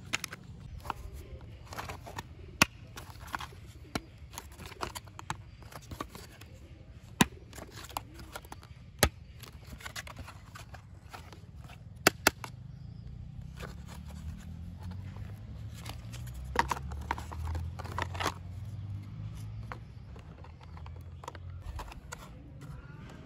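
Plastic toy jeep parts being handled and pressed together: scattered sharp clicks and clacks of hard plastic, with a low rumble of handling that swells about two-thirds of the way through.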